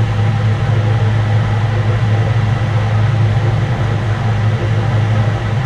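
Milling machine motor and spindle running steadily with a strong low hum.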